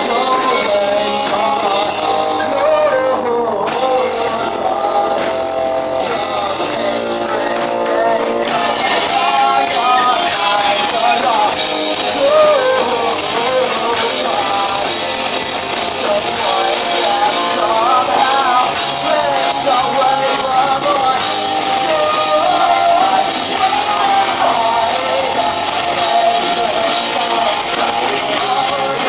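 Live rock band playing loud on stage: electric guitars, bass guitar and drums, the cymbals getting louder about nine seconds in.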